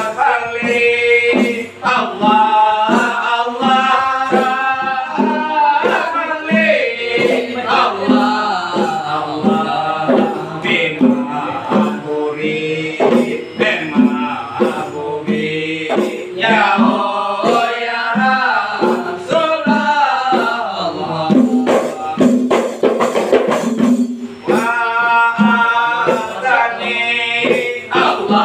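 Men singing Islamic devotional hadrah verses (syair) in Arabic, with rebana frame drums beating along.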